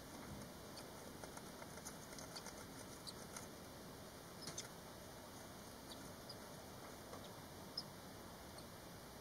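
Faint, scattered high-pitched squeaks and ticks from five-day-old barn swallow nestlings in the nest.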